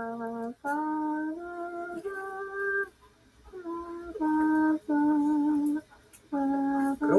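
A slow melody of single held notes with short gaps between them, some notes wavering slightly in pitch, in a singing-like tone.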